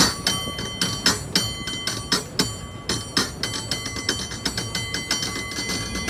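Cable car bell rung by pulling its rope: a quick, syncopated run of strikes with louder accents about once a second, the bell's ringing overlapping between strikes.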